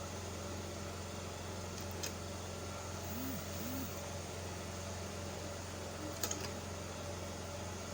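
A steady low mechanical hum, with a few faint clicks about two seconds in and again just past six seconds.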